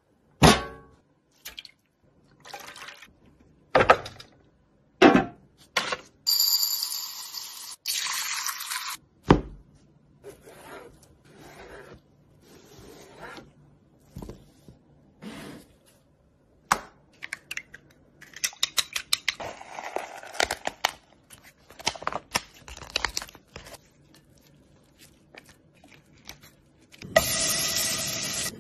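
Kitchen food-preparation sounds: a series of separate sharp knocks and crackles of food being handled and cut on a board, with a stretch of hissing about a quarter of the way in. Near the end, pieces of meat go into a hot pan and start frying with a steady sizzle.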